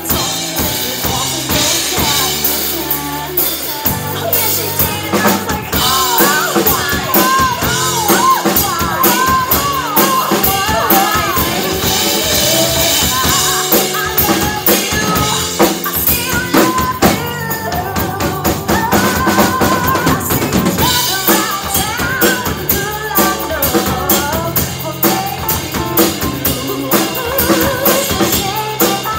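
Live band playing amplified music: drum kit with bass drum and snare driving a steady beat under electric guitar and bass guitar, with no sung words.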